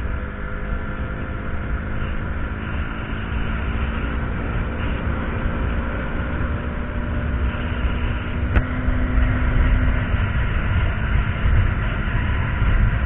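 KTM Duke 200's single-cylinder engine running at a steady highway cruise, under heavy wind buffeting on the camera microphone. A single sharp click about eight and a half seconds in.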